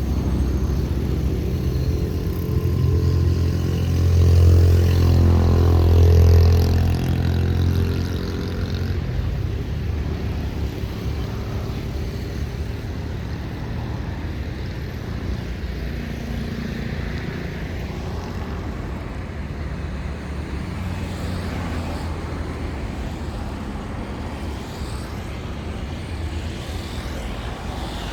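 A large engine's low hum passes close by, loudest about four to seven seconds in and fading by about eight seconds, followed by a steady rumble of traffic.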